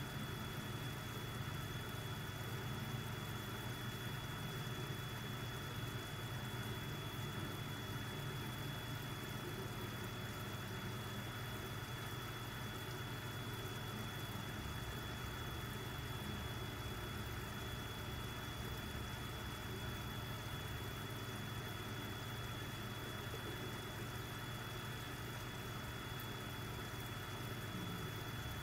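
Aquarium air pump humming steadily, with a constant thin high whine, while its air stone bubbles in the tank.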